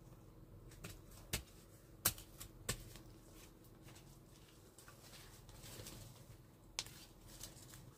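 A handful of short, light clicks and knocks, about five, scattered over light rustling, the sharpest about two seconds in.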